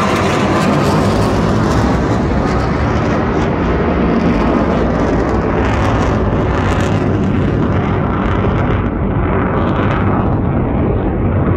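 Two fighter jets flying past overhead: a loud, steady rumbling jet-engine noise whose high-frequency hiss fades over the last few seconds as they move away, leaving the low rumble.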